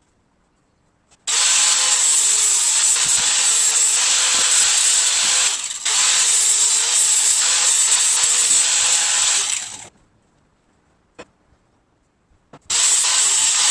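A power tool cutting or grinding metal in a long run of about eight seconds with a brief dip midway. It stops, a single click follows, and it starts up again near the end.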